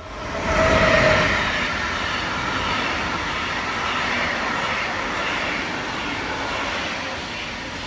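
Freight train passing, its wagons rumbling and clattering over the rails. The sound starts abruptly, is loudest about a second in, then holds steady.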